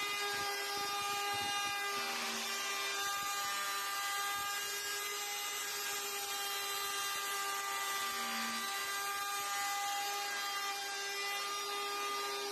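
A high-speed electric power tool running steadily with a constant whine while working wood.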